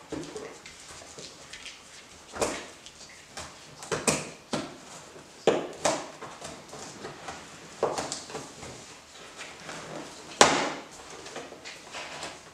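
Scissors cutting through the packing tape and cardboard of a parcel, with the box rustling and knocking as it is handled. Sharp cuts and rips come at irregular intervals, the loudest about ten seconds in.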